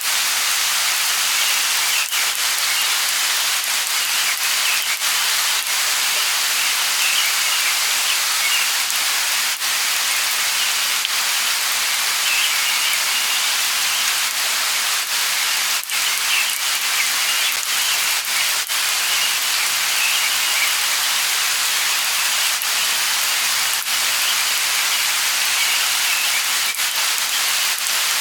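Light rain falling in a steady hiss, with scattered single drips ticking through it.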